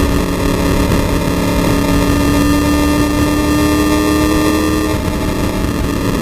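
Race car's engine running hard at high revs, heard from inside the stripped cabin. Its pitch creeps slowly upward, then drops a little about five seconds in.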